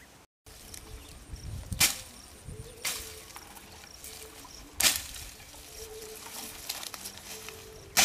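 A hand hoe chopping into grass and earth: three loud, sharp strikes about three seconds apart, with lighter knocks and rustling of vegetation between.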